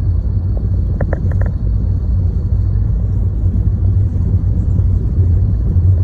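Steady low rumble of a car driving on a snow-covered road, heard from inside the cabin. A quick cluster of clicks sounds about a second in.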